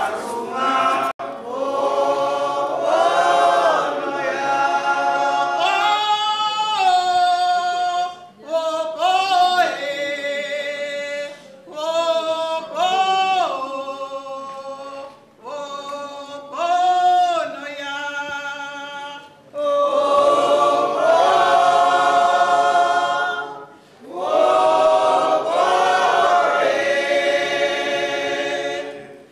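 A group of women singing a cappella without instruments, in phrases separated by short pauses. The singing grows fuller and louder about two-thirds of the way through.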